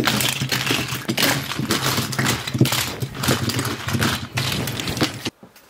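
Wooden toy trains clattering and knocking against each other as they are swept aside by hand, a dense run of quick wooden knocks that cuts off suddenly about five seconds in.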